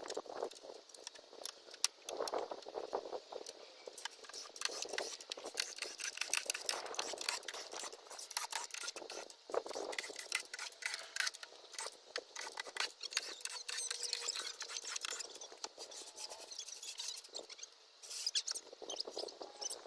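Dense irregular clicking, rattling and scraping of hands-on shop work, with a few sharper clicks.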